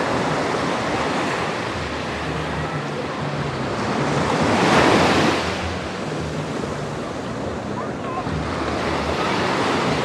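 Small ocean waves washing up a sandy beach, one wash swelling loudest about halfway through and then drawing back. Wind on the microphone adds a low rumble.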